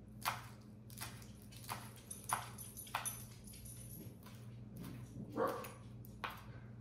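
Chef's knife chopping basil leaves on a wooden cutting board: a run of light, irregular knocks of the blade on the board. A brief, somewhat louder sound comes about five seconds in.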